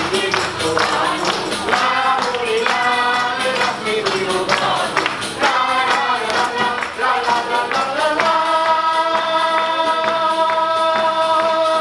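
Live Sicilian folk song: accordion with voices singing over a quick percussion beat. About eight seconds in, the music settles on one long held final chord that cuts off at the end.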